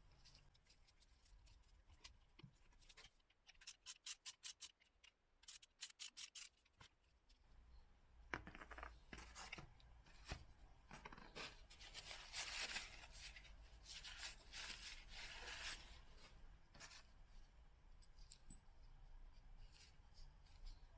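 Faint handling noises: two quick runs of rapid clicks a few seconds in, then several seconds of rubbing and scraping.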